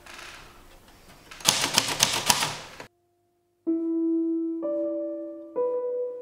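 Vintage manual typewriter typed in a quick burst of sharp key strikes for about a second and a half, stopping abruptly. After a short silence, single piano notes follow slowly, about one a second.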